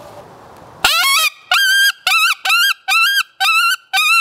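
Hand-held coyote mouth call blown to imitate a coyote pup's whine: seven short, high-pitched whines in quick succession, starting about a second in, each rising sharply and then held. It is the distress whine of a hurt pup, used to stop a running coyote or draw it in.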